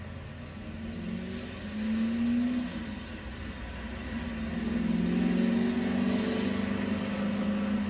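Diesel locomotive engine running and rising in revs twice, briefly about two seconds in and again from about four seconds on, growing louder.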